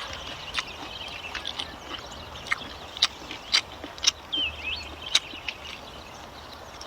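Birds chirping: scattered short, sharp chirps, with one brief warbled call about four and a half seconds in, over faint steady background noise.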